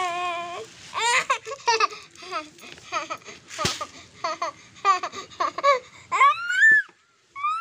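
A young child's voice babbling and laughing in many short, high-pitched bursts, with a higher squeal rising and falling just after six seconds.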